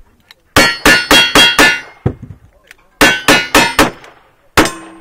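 Single-action revolver shots fired in quick succession at steel plate targets, each shot followed by the ring of steel. Two strings of five: the first string comes quickly, then a pause of about a second for the switch to the second revolver, then five more shots, the last a little slower, its steel ringing on.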